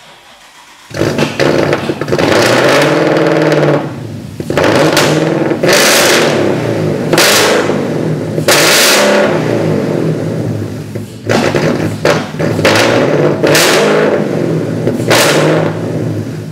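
A 2016 Ford Mustang GT's 5.0-litre Coyote V8 starts about a second in and is revved several times, rising and falling between blips. The wrecked car is being test-run without coolant.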